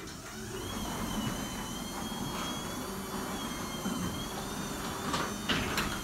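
Electric garage door opener running and lowering a sectional door along its tracks: a steady motor-and-rolling hum with a faint wavering high whine, and a few knocks near the end. The door's springs, rollers and hinges have just been coated with white lithium grease that is still working in.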